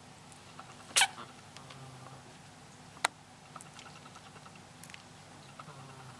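A kitten sneezes sharply about a second in, with another short sharp sneeze two seconds later. Between them a sleeping cat snores softly, two low snores about four seconds apart.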